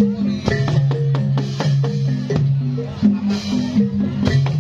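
Reog gamelan accompaniment: drums and other percussion keep a fast, steady rhythm of repeated strokes and short pitched notes over sustained low tones.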